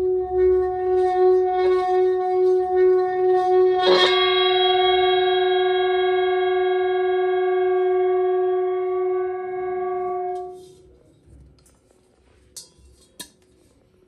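Singing bowl rubbed around the rim, giving one steady tone that wobbles in loudness. About four seconds in it is struck and rings out in several tones at once that fade slowly, until it is damped and cuts off suddenly near ten and a half seconds. Two faint clicks follow.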